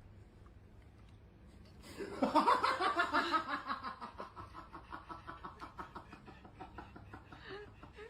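A person laughing, starting about two seconds in. It is loudest at first, then trails off in quick repeated pulses.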